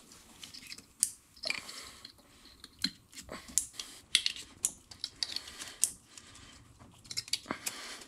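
Scattered light plastic clicks and rattles from an engine wiring harness and its coil pack connectors being handled and pressed into place by hand.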